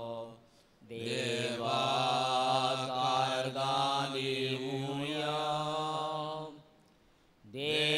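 A voice chanting a Konkani prayer refrain in long held phrases. One phrase trails off just after the start, a long phrase follows after a short pause, and another begins near the end after a second brief pause.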